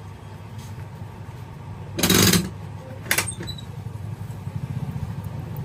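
A masseur's hands striking a person's back during a massage: a short loud flurry of slaps about two seconds in, then one sharp smack about a second later. Under it runs a steady low engine hum.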